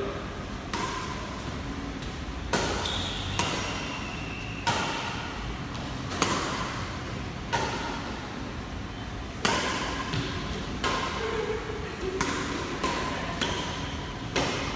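Badminton rackets hitting a shuttlecock back and forth in a doubles rally: about a dozen sharp hits at irregular gaps of roughly one to two seconds.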